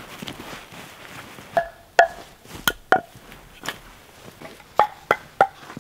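A jacket's fabric rustling as it is spread out, then about eight sharp wooden knocks with a short ring as pieces of dry cedar are set down and clack against each other.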